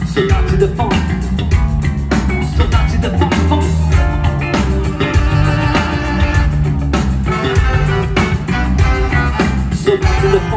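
Live funk-rock band playing loud and steadily, with electric guitars, bass and drum kit, heard from among the audience in a club hall.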